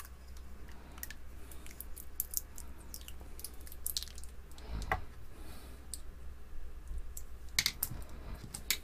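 Kapton tape being pulled off its roll and pressed into place by hand, giving small irregular crackles and clicks, with a soft knock about five seconds in, over a low steady hum.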